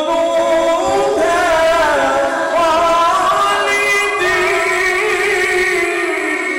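Male qari reciting the Quran in a slow melodic chant, stretching one vowel into a long line that rises, wavers in quick ornaments, then settles on a held note.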